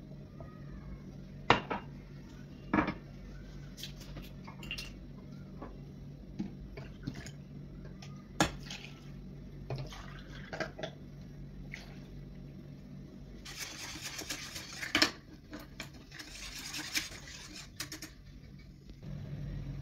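Kitchen utensils at work: a glass cup clinking sharply against a metal saucepan several times, then milk being poured and a wire whisk stirring the liquid in the pan as two longer rushing stretches in the second half.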